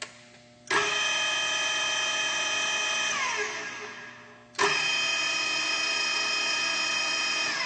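Tailift TPR 1100 radial arm drill's spindle drive running unloaded with a steady whine. It starts sharply under a second in, winds down with falling pitch, then starts again a little past halfway and runs until near the end.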